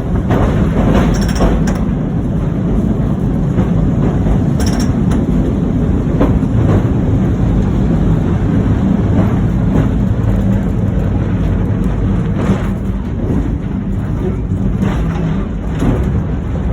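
Vintage electric tram running along its track: a steady low rumble with occasional sharp clicks and knocks.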